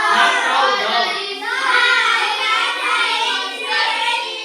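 A group of children reciting a sentence together in a sing-song chorus.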